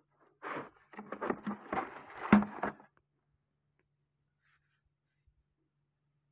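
Scraping and clicking from an LED flood light and its metal mounting bracket being handled, lasting about two and a half seconds, with one sharper knock near the end of it.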